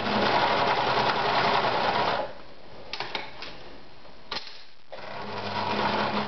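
Victoria Super Deluxe 118F sewing machine stitching through a folded leatherette strip. It runs for about two seconds and stops, and a few sharp clicks follow as the work is handled. It starts again about a second before the end.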